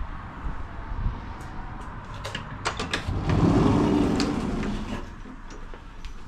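Driver's cab door of a Škoda 03T Anitra tram being unlatched with a few sharp clicks, then opened with a loud rush about three seconds in that fades over the next second, over the tram's steady low rumble.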